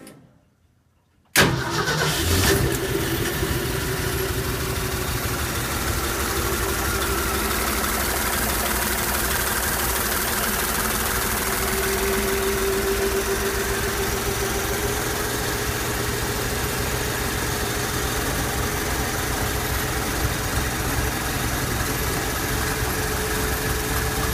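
Ford 240 cubic-inch inline-six, fuel-injected through a Chevrolet throttle body under MegaSquirt control, firing up on its first start about a second in, flaring briefly, then settling into a steady idle.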